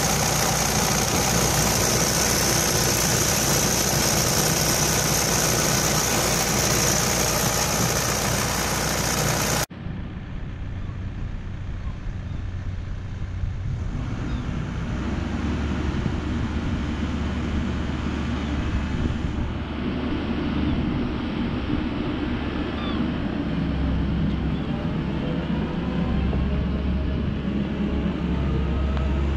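Komatsu PW98MR-6 wheeled excavator's diesel engine running steadily, heard close up in the open engine bay. After a sudden cut about ten seconds in, the machine is heard from farther off, its engine working harder from about fifteen seconds in while the hydraulics swing the boom and bucket.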